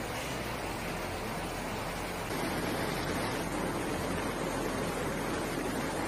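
Heavy rain and wind in a storm, giving way about two seconds in to the steady rush of a fast floodwater torrent.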